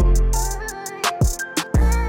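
Background music with a steady beat: deep bass notes, sharp drum hits and a plucked melody.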